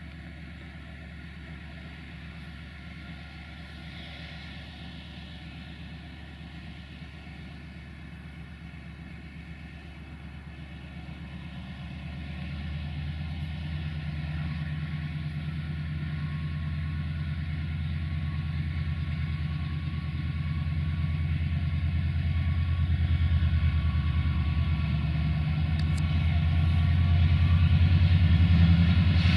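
Diesel engine of a CFR class 64 'GM' diesel-electric locomotive (EMD-engined) running as it hauls a passenger train towards the listener. Its low, steady drone grows steadily louder from about halfway through as the locomotive draws near.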